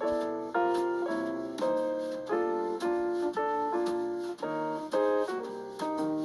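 Background piano music: notes and chords struck every half second to a second, each ringing and fading.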